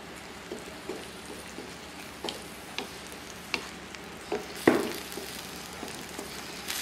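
Wooden spatula stirring tofu in a stainless steel wok of simmering spiced sauce. Scattered knocks of the spatula against the pan, the loudest just under five seconds in, sound over the steady sizzle of the sauce.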